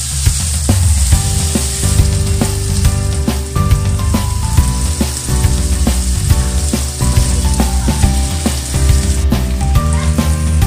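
Diced chicken and onion sizzling in hot oil in a nonstick frying pan, with a plastic spoon knocking and scraping against the pan as it is stirred. Background music with a melody plays along.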